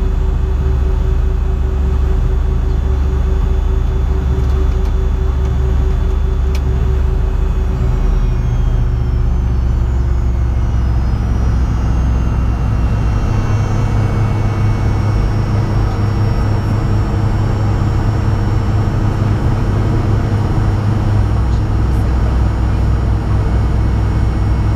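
Fokker 100's rear-mounted Rolls-Royce Tay turbofans running at taxi power, heard from inside the cabin: a steady low rumble under a high engine whine. About a third of the way in the whine slides down in pitch, and new, slightly higher tones take over.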